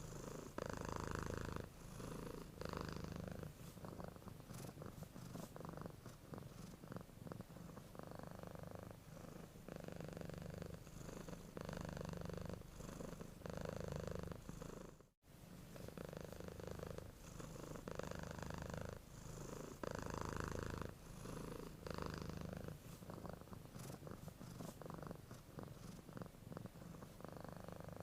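Domestic cat purring steadily, the purr swelling and easing in a rhythm of one pulse every second or two as it breathes in and out. The sound cuts out completely for a split second about halfway through.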